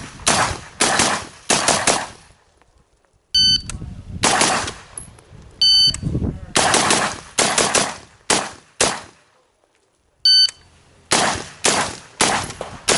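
Strings of four to six AR-15 rifle shots, fired about half a second apart, each string set off by the short electronic beep of a shot timer. The beep-then-string cycle repeats about three times, with short pauses in between.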